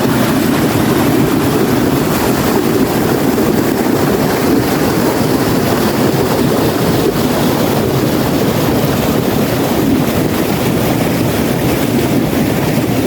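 Fast-flowing stream of water rushing steadily: a loud, even, fairly deep roar with no breaks.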